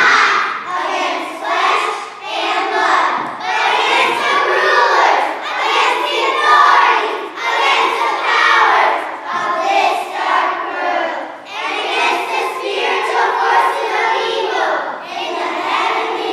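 A group of young children singing and calling out together in loud phrases.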